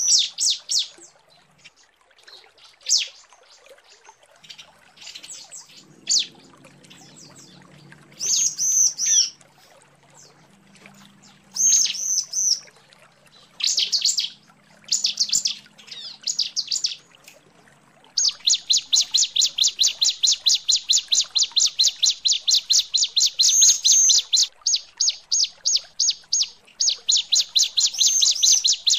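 Female bar-winged prinia (ciblek) calling to draw males. At first it gives short chirping phrases a second or two apart, then from about two-thirds of the way in a rapid, unbroken run of sharp notes, several a second.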